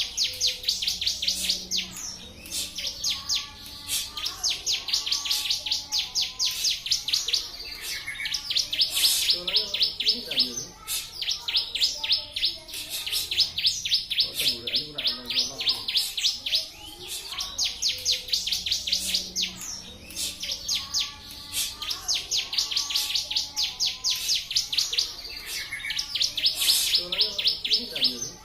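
A ciblek, a small prinia songbird, singing its 'tembakan' song: long rapid runs of sharp, high, evenly repeated notes, phrase after phrase with short breaks between.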